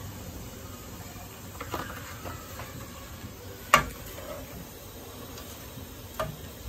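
Small tamban fish deep-frying in a pan of oil, a steady sizzle, with wooden chopsticks clicking against the pan a few times, the loudest click about four seconds in. The fish are near the end of frying, almost crisp.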